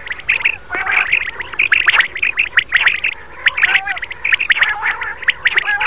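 Common quail calling: a dense, overlapping run of short, high chirping calls, several to a second, with a few lower trilling notes mixed in.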